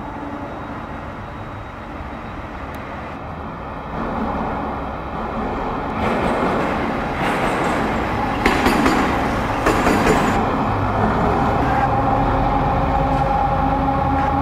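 Freightliner Class 70 diesel locomotive running light past at speed. Its engine drone grows as it approaches and peaks with a few clanks from the wheels as it passes, about eight to ten seconds in, then holds as a steady engine note as it draws away.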